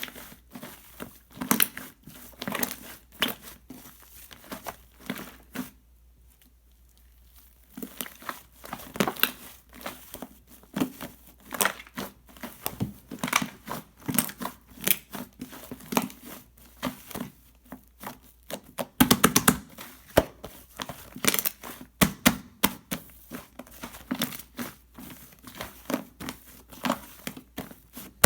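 Shaving-foam slime being squeezed and worked by hand, giving a stream of small sticky clicks and crackles. It stops for about two seconds near the start, and the clicking gets denser and louder past the middle.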